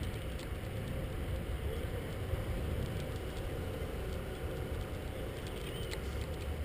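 Riding noise from a moving bicycle: a steady low rumble of wind on the microphone and tyres on the road, with a few light clicks.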